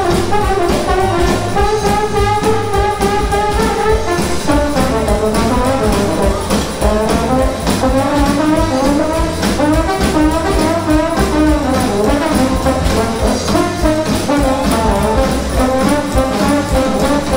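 Upbeat jazz brass music with trombone and trumpets playing over a steady bass beat.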